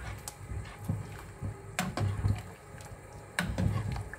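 A metal ladle stirring a large pot of sayur asem broth with corn cobs, the liquid sloshing. The ladle strikes the pot with several sharp clinks.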